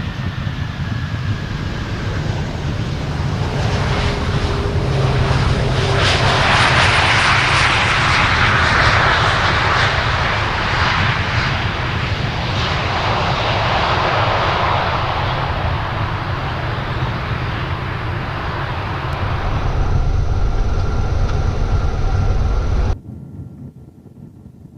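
KC-135 Stratotanker jet engines and airframe rolling out on the runway after touchdown: a steady low rumble with a rush of noise that swells about six seconds in and eases off, then the sound cuts off abruptly near the end.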